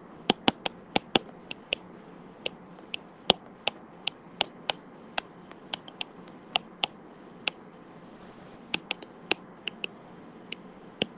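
Stylus tapping and clicking on a tablet screen during handwriting: irregular sharp clicks a few times a second, with a short pause about eight seconds in.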